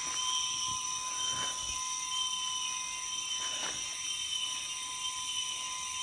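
Steady chorus of night insects, several continuous high-pitched tones layered over a hiss.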